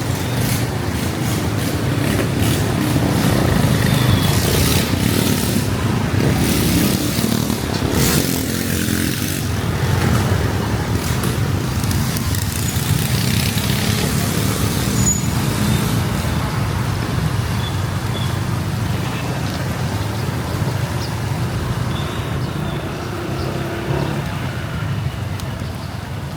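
Steady traffic and motorbike riding noise in heavy rain: a low rumble of engines and wind, with the hiss of rain and wet road.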